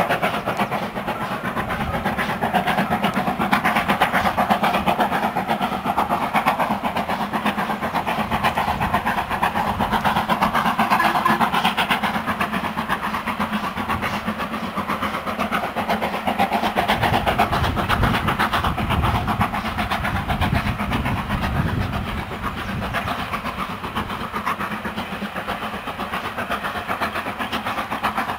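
Steam locomotive working hard up a steep gradient with a heavy train, its exhaust beats carrying across open country.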